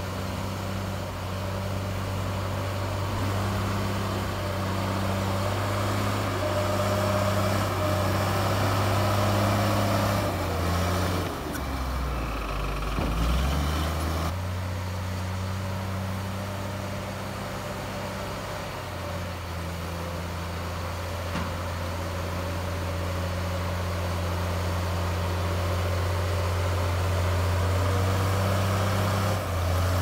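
Komatsu D53P bulldozer's diesel engine running hard and steady. Its note sags sharply for a couple of seconds near the middle, as if bogging down under load, then picks back up.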